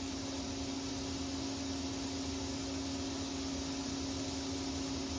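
Steady electrical hum and fan hiss from a CNC machine and its control computer, still powered while the computer shuts down; one constant hum tone over an even hiss, unchanging throughout.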